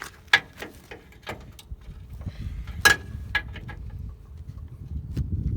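Sharp metallic clanks and clicks of hand tools on the truck bed's bolt, the two loudest about a third of a second in and near three seconds in, each ringing briefly, over a low rumble.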